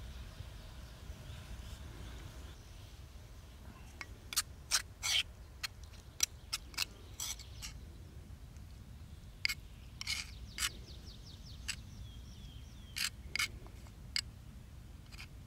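Steel knife blade scraping and tapping against a stone mortar as a herb-and-kohlrabi paste is scooped out: a string of sharp clicks and short scrapes at uneven intervals, starting about four seconds in.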